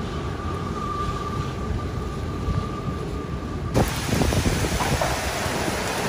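Hurricane wind rumbling on the microphone, with a faint steady whistle. Nearly four seconds in it cuts abruptly to heavy wind-driven rain hissing, with gusts buffeting the mic.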